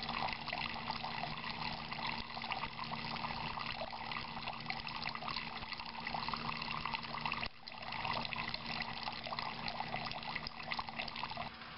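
Thin stream of water falling into a galvanized steel bucket of water, a steady trickling splash. It drops out briefly about seven and a half seconds in.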